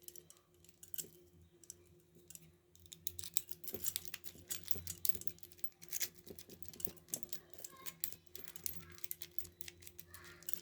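Quick, irregular little metallic clicks and rattles of handcuffs and chain being worked while picking the cuff lock, sparse at first and coming thick and fast from about three seconds in, over a faint steady hum.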